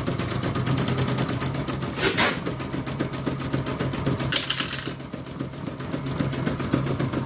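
Embroidery machine running with its covers off, the needle mechanism ticking in a fast, even rhythm over a steady motor hum as it test-stitches. Two short hisses come about two seconds and four and a half seconds in.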